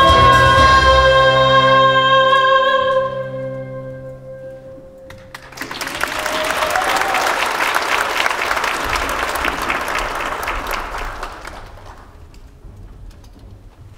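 The final held chord of a song, voices with instruments, fades out; then, about five seconds in, the audience applauds for several seconds before dying away near the end.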